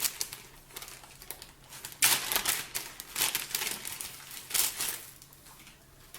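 Wrapping or packaging crinkling and rustling in irregular bursts as an item is handled and unwrapped. It is faint at first and louder from about two seconds in.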